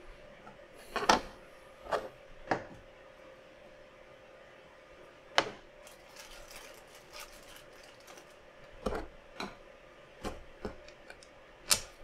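Small hard parts of a PC case being handled and fitted together during assembly: about ten irregular sharp clicks and taps, the loudest about a second in, midway and near the end, over a faint steady hum.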